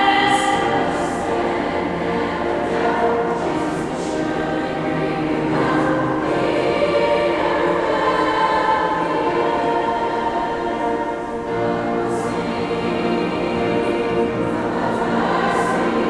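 A high school choir singing a slow piece in long held notes, boys' and girls' voices together.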